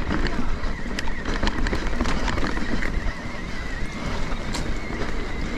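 Electric mountain bike riding a wet trail at speed: tyre noise and wind rush on the microphone, scattered knocks and rattles from the bike over rough ground, and a thin steady whine throughout.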